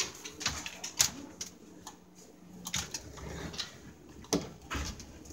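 Louvered wooden bifold closet doors being handled, with a few sharp clicks and knocks, the loudest about a second in and near the end, and faint soft sounds in between.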